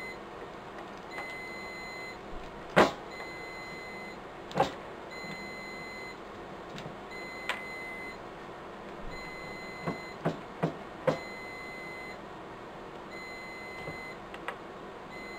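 Riello DVD 2200 UPS alarm giving short high beeps about every second and a half, the warning that has been going for about two weeks while its batteries await replacement. Several sharp knocks and clicks of handling are mixed in, the loudest about three seconds in.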